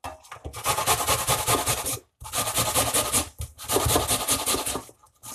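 A peeled onion being grated by hand on a stainless steel box grater: quick back-and-forth scraping strokes in three runs with brief pauses between them.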